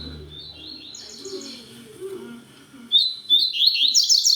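Male double-collared seedeater (coleiro) singing as a tutor bird: fast runs of high, repeated notes, softer at first, then a loud, dense burst of song from about three seconds in.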